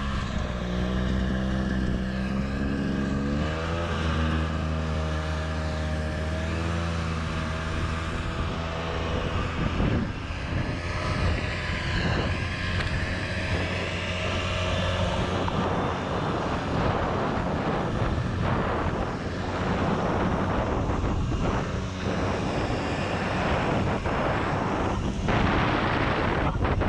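Snowmobile engine running ahead while it tows a snowboarder, its pitch rising about three and a half seconds in. From about eight seconds on, a steady rushing noise of wind and the board sliding over snow takes over.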